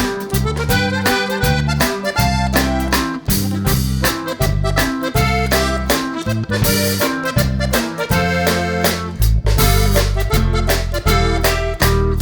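Upbeat background music with a steady beat and an accordion-like lead.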